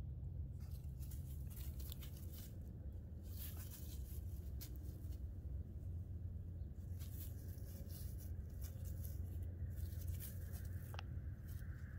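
Dry fallen leaves crackling and rustling underfoot in scattered short crackles, over a low steady rumble.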